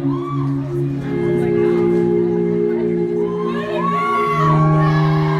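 Live band playing held synth chords, with the crowd screaming and cheering over them.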